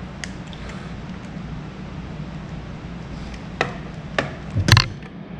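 A screwdriver clicking and tapping against a washing machine's circuit board: a few faint ticks, then four sharp knocks in quick succession about three and a half seconds in, the last the loudest. A steady low hum runs underneath.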